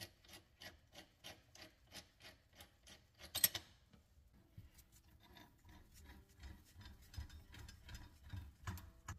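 Ratcheting wrench clicking steadily, about three clicks a second, as it turns the nut of a sink mounting clamp. A brief louder clatter comes about three and a half seconds in as the clamp comes free, followed by quieter, irregular clicks and knocks of metal parts being handled.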